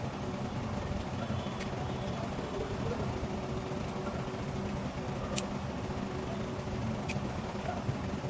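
Steady low hum and rumble of running machinery, with a few faint clicks from a phone circuit board being handled.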